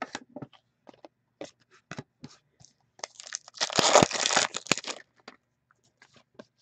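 Trading cards being flicked and slid in the hands with light clicks, then a foil card pack torn open with a crinkling rip lasting about a second and a half, about three and a half seconds in.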